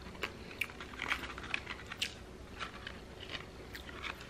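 A person chewing food with a mouth close to the microphone, a scatter of short crisp crunches and mouth clicks.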